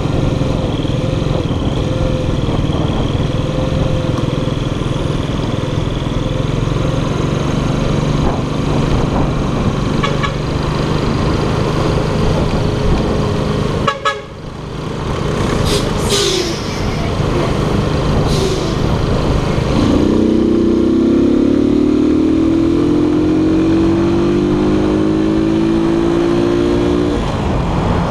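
Keller Crono 110 scooter's small single-cylinder four-stroke engine running under way, heard onboard with wind and road noise. The sound briefly dips about halfway, and in the last third the engine note rises steadily in pitch for several seconds as it accelerates, then drops back.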